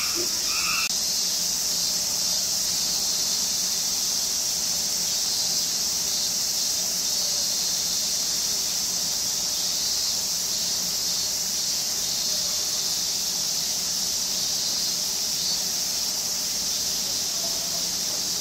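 Cicadas droning in a steady, continuous high-pitched chorus. A couple of short repeated calls come right at the start.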